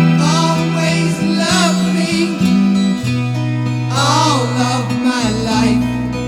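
A rock song playing from a vinyl record over a hi-fi: a sung voice over guitar and long held bass notes.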